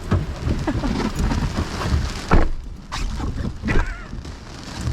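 Severe thunderstorm wind gusts buffeting the microphone in a heavy low rumble, with rain and a few sharp knocks, the loudest about two and a half seconds in.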